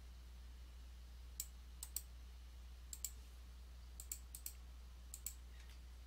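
Computer keyboard keystrokes typing a terminal command: a dozen or so sharp, quiet key clicks in uneven bursts, some in quick pairs. A steady low hum runs underneath.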